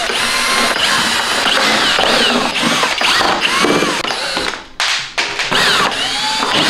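SKIL cordless drill-driver backing screws out of a TV's plastic back cover, its motor whining up and down in pitch as the trigger is squeezed and eased off. It stops briefly about five seconds in, then runs again.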